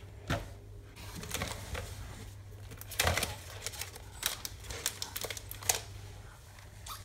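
Foil-wrapped chocolate eggs and wrapped lolly packets crinkling and clicking as a toddler picks them up and drops them into a plastic bucket, with irregular small knocks and one sharper knock about three seconds in.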